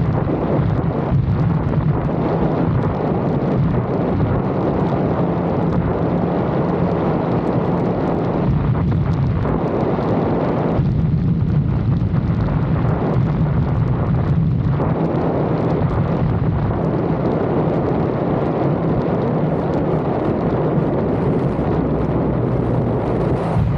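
Lexus IS 250 driving, its 2.5-litre V6 engine a steady low hum under heavy wind and road noise on the microphone.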